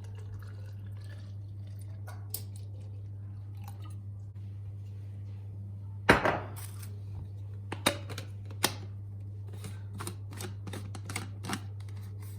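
Clicks and knocks of household items being handled, over a steady low hum, with a short rushing noise about halfway through.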